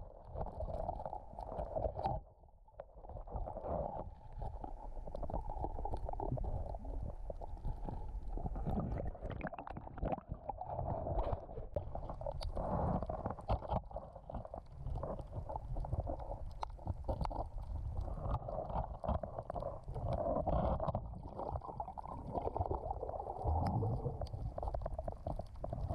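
Muffled underwater noise picked up by a camera in its waterproof housing during a scuba dive: an uneven low rumble and gurgling with scattered small clicks.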